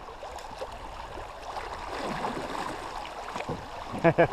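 River current running and gurgling around a kayak, with faint splashes. A short loud burst of a man's voice comes near the end.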